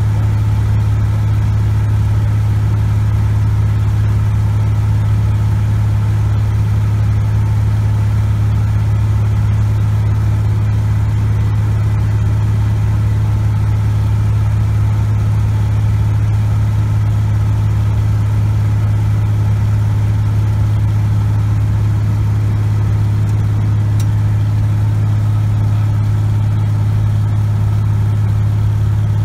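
Cessna 180 Skywagon's Continental O-470 six-cylinder engine and propeller running at a steady in-flight power setting, heard from inside the cockpit as a loud, unchanging low drone.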